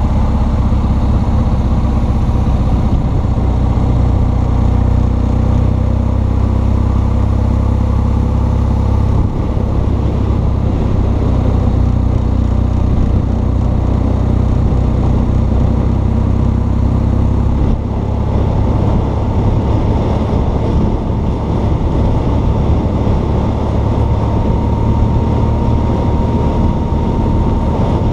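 BMW R1200 GS Adventure's boxer twin engine running under way at road speed, with wind rush over the microphone. The engine note changes abruptly about nine seconds in and again about eighteen seconds in.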